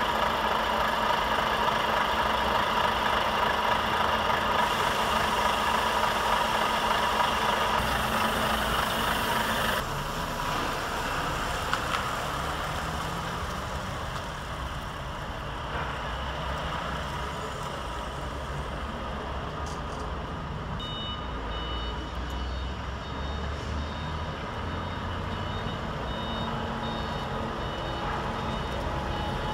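Heavy truck's diesel engine running as the truck moves a multi-axle low-loader trailer, louder for the first third. About two-thirds of the way through, a high reversing alarm starts beeping in a steady repeating pattern as the rig backs up.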